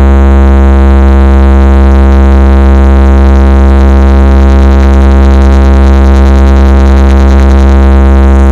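A P.Sound DJ speaker system playing a bass vibration-test drop: one unbroken, very loud, deep bass drone with many overtones and no beat.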